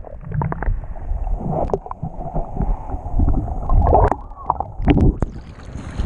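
Shallow sea surf heard from a microphone under the water: muffled sloshing and rumble with scattered bubbly gurgles. Near the end the microphone breaks the surface and open-air wind and surf hiss come back.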